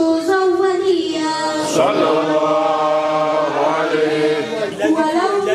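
A solo voice chanting a melodic religious recitation, with notes that glide into one another and a long held note of about two seconds in the middle.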